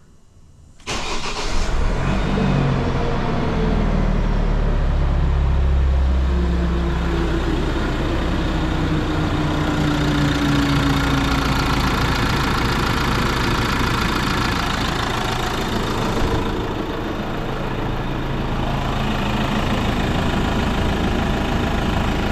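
Nissan NP300 Navara's turbo-diesel engine started with the key: it cranks and catches about a second in, then settles into a steady idle, its revs easing down over the following several seconds. This is the start-up after fitting new intake hot and throttle-body pipes.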